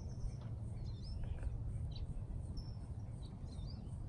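Outdoor background: a steady low rumble with a few faint, short bird chirps scattered through it.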